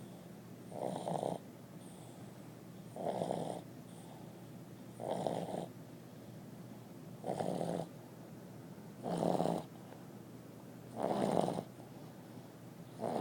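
A sleeping dog snoring loudly, one snore about every two seconds, in a steady breathing rhythm.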